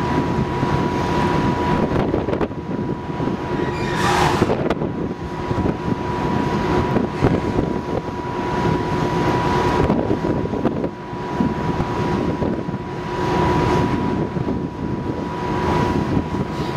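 Steady low rumble and machinery hum of the ferry MV Salish Eagle's engines and propulsion as it pulls away from the berth. It carries a steady high tone and swells of noise every few seconds, and a brief hiss comes about four seconds in.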